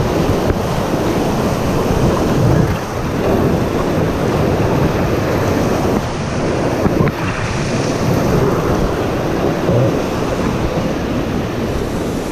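Whitewater rapids rushing and splashing around an inflatable raft, loud and steady, with water spray and wind buffeting the microphone.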